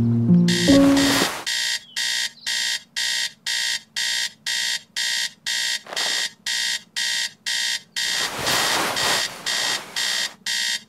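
Alarm clock beeping in a steady repeating pattern, about two high-pitched beeps a second. Short stretches of rustling, like bedcovers moving, come just before the beeping starts and again a couple of seconds before the end.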